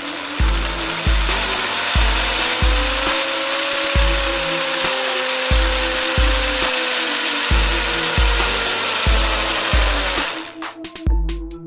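Black & Decker KR554RE 550-watt hammer drill running steadily with a high whine, then cutting off about ten seconds in. Background music with a steady bass beat plays throughout.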